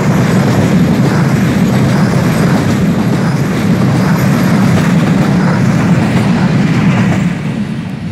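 Freight train of loaded container flat wagons rolling past at close range: a loud, steady rumble with wheel clatter, dropping off about seven seconds in as the last wagon goes by.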